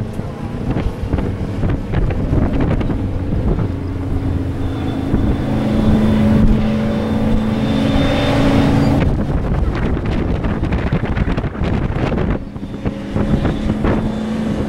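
Race pickup trucks' engines running on the track, with a steady engine tone swelling to its loudest in the middle as a truck goes by. Wind buffets the microphone.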